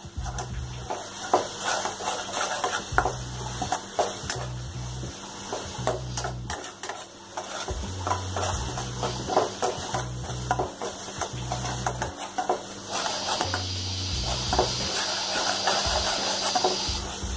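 Metal spoon stirring and scraping onion paste and ground spices frying in oil in a kadhai: a steady sizzle with frequent clicks and scrapes of the spoon against the pan. The masala is being roasted in the oil, and the sizzle grows brighter for a few seconds near the end.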